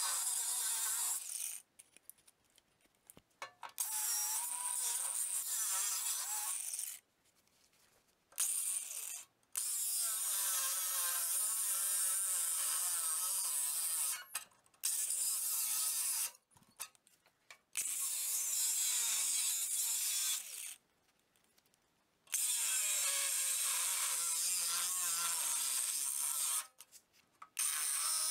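DeWalt angle grinder with a thin cutoff wheel cutting through a garden tractor's sheet-metal fender, a loud, high-pitched grinding hiss. It comes in several runs broken by short silences.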